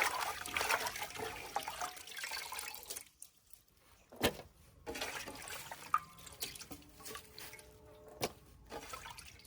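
Water running and splashing as peeled prawns are washed by hand, for about three seconds before stopping. A few sharp knocks and clatters follow.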